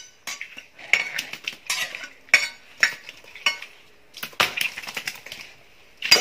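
A large kitchen knife scraping and cutting a tilapia on a tiled floor: irregular scrapes and knocks of the blade against fish and tile, the loudest a sharp strike near the end.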